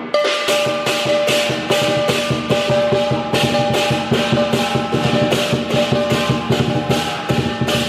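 Chinese dragon-dance percussion: a big drum beaten in a fast, dense roll with cymbals clashing about two to three times a second, and a steady metallic ringing underneath.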